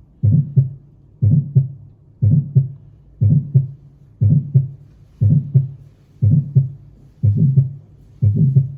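Heart sounds heard through a stethoscope, beating about once a second, each beat a pair of low thuds with sound running between the two.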